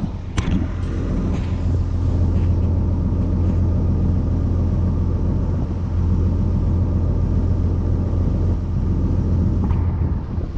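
Small boat's engine running steadily under way, a constant low drone.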